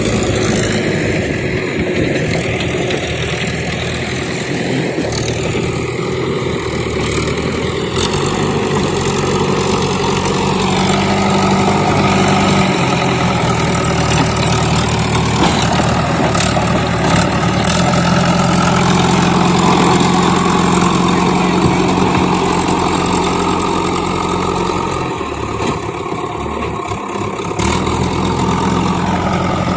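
Diesel engines of a backhoe loader and tractors running, the engine note stepping up and down several times as the machine works.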